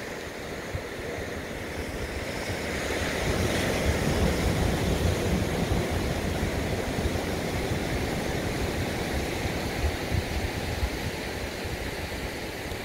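Ocean surf breaking and washing over a rocky shore, swelling louder about three seconds in and then easing off a little. Wind gusts rumble on the microphone underneath.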